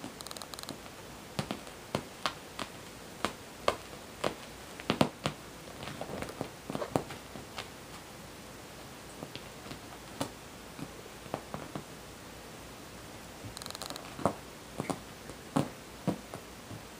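A Bengal kitten pouncing and scrabbling at a cushion on a fabric sofa: irregular soft thumps and taps of its paws, with fabric rustling. There are two busy spells, one through the first half and another near the end.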